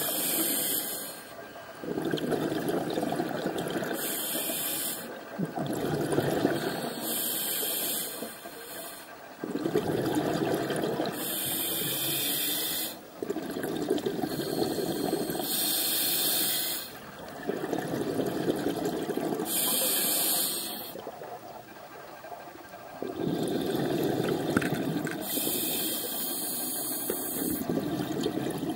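Scuba diver breathing through a demand regulator underwater: a hissing inhalation alternating with a gurgling rush of exhaled bubbles, a full breath about every four seconds.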